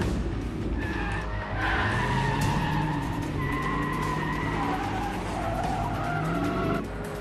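Several police sedans accelerating hard, tyres squealing and skidding, engines revving up, easing off just before the end.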